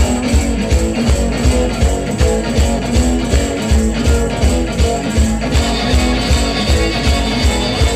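Garage rock duo playing live: electric guitars strummed over a steady drum beat of about two strokes a second, the song having just kicked in.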